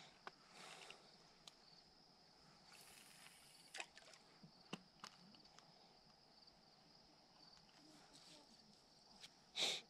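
Near silence with a faint, steady, high-pitched insect chorus, broken by a few small clicks and a short rush of noise near the end.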